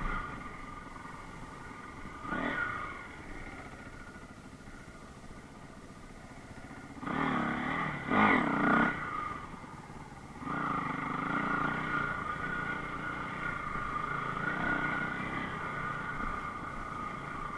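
Enduro motorcycle engine running, revved in short bursts about two seconds in and again between about seven and nine seconds in, pitch rising and falling with the throttle, then pulling steadily louder from about ten seconds on.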